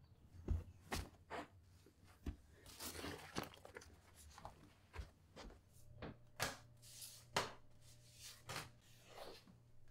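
Paper envelopes being handled and sorted, a run of short paper sounds. A low steady hum comes in about halfway through.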